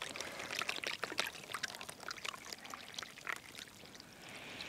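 Wash-free rice being poured into water in a camp cooking pot: a dense run of small clicks and patters that thins out about three and a half seconds in.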